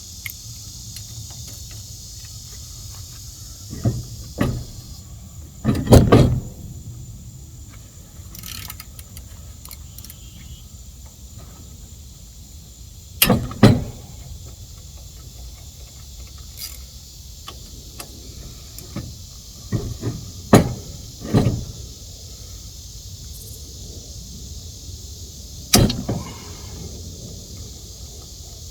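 Scattered sharp metal clanks and clicks of hand tools working on a small engine, single knocks a few seconds apart with a brief cluster of three about twenty seconds in, over steady cricket chirping.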